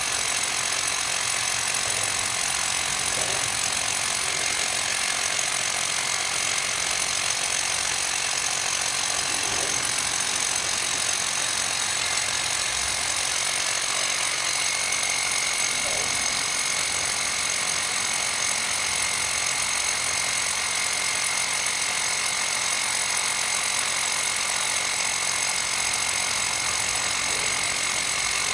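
Handheld power tool running steadily without a break, working the surface at the foot of a concrete bridge abutment. A thin high tone joins the noise about halfway through.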